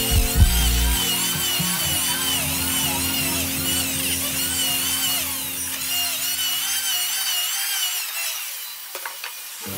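An electric power tool working wood, its whine wavering up and down in pitch, over background music that fades out near the end.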